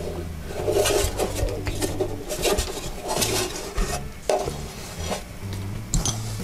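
Handling noise from a metal-cased LCD screen separator as it is turned over and set down on a table: rubbing and scraping with a few sharp knocks. Near the end come small hand tools being picked up.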